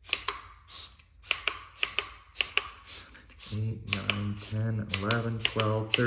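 Trigger spray bottle spritzing cleaning solution onto a carpet floor mat, a quick hissing spray roughly twice a second. About halfway in, a man's voice starts counting the sprays.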